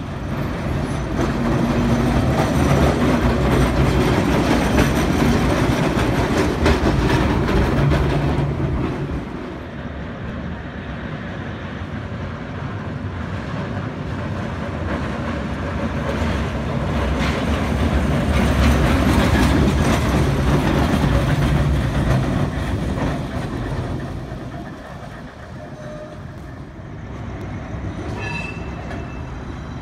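Electric streetcars running past on their rails, a low rumble with the clack of wheels over the track. One car passes loudly at the start and fades about nine seconds in; another builds, passes loudly about two thirds of the way through, and fades.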